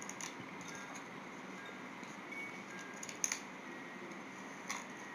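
A few faint clicks and taps from a small plastic device being handled, over a steady background hiss. The sharpest tap comes a little past three seconds in.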